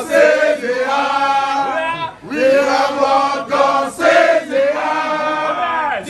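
A group of male voices chanting together on long held notes, with a short break about two seconds in.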